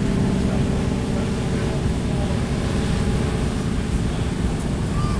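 Heavy storm surf from a distant hurricane's swell, breaking and rushing up the beach in a steady, low rumble.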